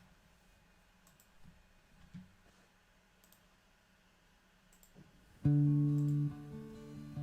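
Near silence with a few faint clicks, then about five seconds in an acoustic guitar starts playing held plucked notes, the opening of the song.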